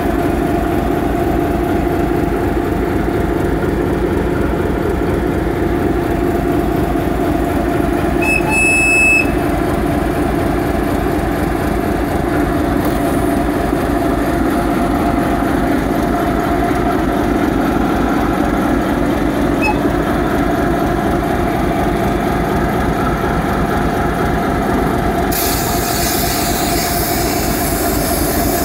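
ČD class 749 'Bardotka' diesel locomotive's six-cylinder ČKD engine idling close by, a steady low throb with a steady hum. A short high whistle sounds about eight seconds in, and a hiss sets in near the end.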